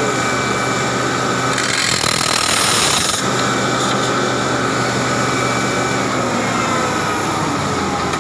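Crawler rock drill rig drilling into rock: a steady, rapid percussive chatter over the running engine. About two seconds in, a louder rush of hiss lasts for about a second.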